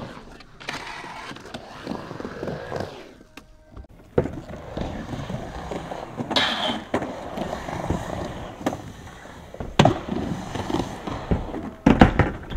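Skateboard wheels rolling up and down a vert ramp, with sharp knocks of the board on the ramp. The loudest knocks come about four seconds in, about ten seconds in and near the end.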